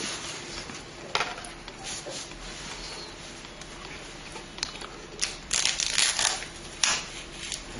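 Hands handling computer parts and packaging: scattered clicks, rustling and crinkling, busiest about five and a half to six and a half seconds in.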